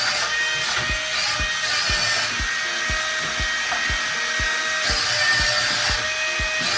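Background music with a steady beat, a low drum hitting about twice a second under held tones.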